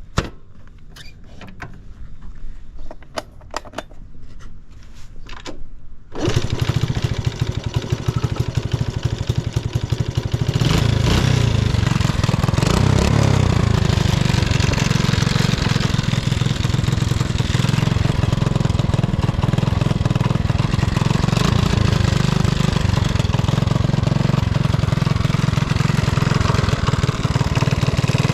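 Honda Super Cub 70's single-cylinder four-stroke engine starting after a few faint clicks, about six seconds in. It then runs steadily, getting louder about ten seconds in, with no abnormal noise.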